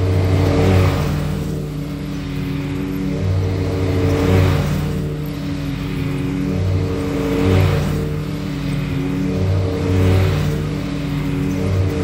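Exmark zero-turn riding mower running at mowing speed, with a steady engine hum under blade and deck noise. The sound swells and fades about every three seconds as the mower passes back and forth.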